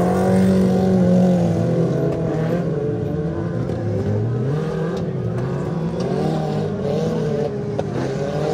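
Several stock-car engines of up to 1800 cc racing together, revving up and easing off so that their pitches rise and fall across one another.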